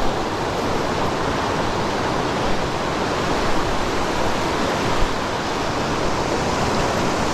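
Creek water rushing steadily, a loud, even rush without a break.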